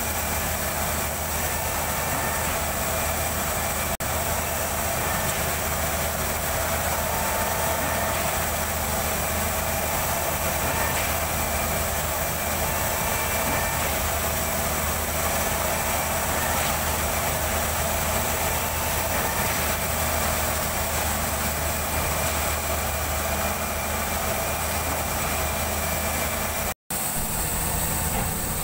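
Truck-mounted concrete pump's engine running steadily during a concrete pour, a constant low drone. The sound drops out for an instant near the end.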